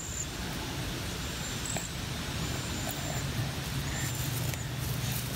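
Outdoor ambience dominated by a steady low motor drone, with a few short, faint high chirps over it.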